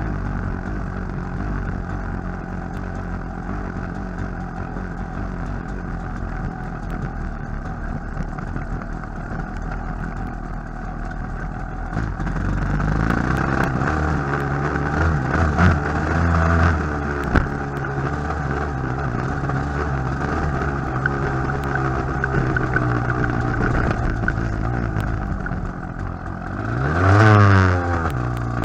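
TM enduro motorcycle engine running under load as it is ridden over a rough dirt track, its revs rising and falling. It grows louder about halfway through, and near the end there is a brief loud burst of revs.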